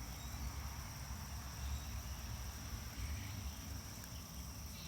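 A steady high-pitched whine or insect-like drone over a low, uneven rumble.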